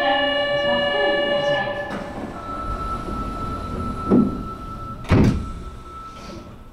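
Subway station door closing: a held chime chord for about two seconds, then a steady warning tone, and two thunks a second apart as the sliding doors shut.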